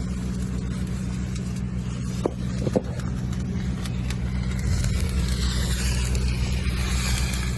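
An engine runs with a steady low drone. About five seconds in, a crackling hiss in the upper range grows stronger, typical of arc welding, and there are a couple of brief clicks before it.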